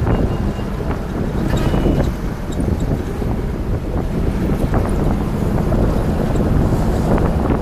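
Open-top Beijing Jeep driving along a city street: steady engine and road noise under heavy wind buffeting on the microphone, with a few light knocks and rattles.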